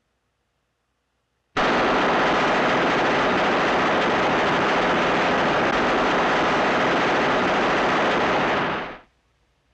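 Machine gun firing in one long continuous burst that starts suddenly about a second and a half in, runs for about seven seconds, and dies away near the end.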